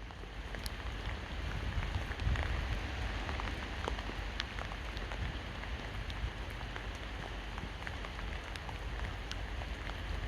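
Steady rain falling, with many scattered sharp drip ticks over an even hiss, and a low wind rumble underneath.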